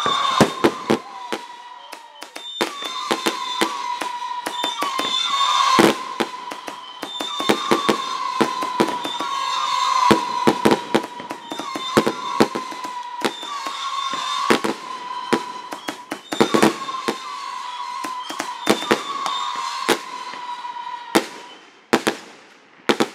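Fireworks going off in quick succession: many sharp bangs and crackling pops, over a high steady tone that keeps coming back every second or two. The bangs thin out to a few single ones near the end.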